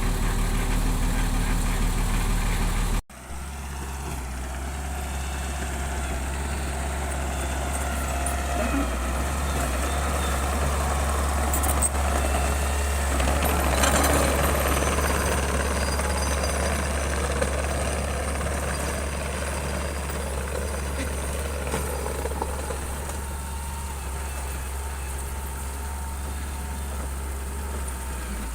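Heavy construction machine's engine running steadily. An abrupt cut about three seconds in switches to another steady engine drone, which grows louder toward the middle and then eases off.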